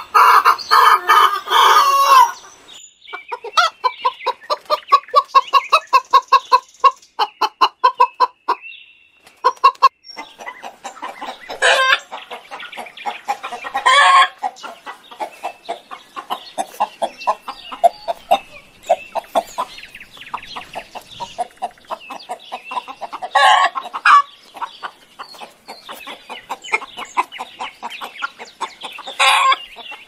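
Chickens clucking: fast runs of short clucks, with four louder drawn-out calls in the second half.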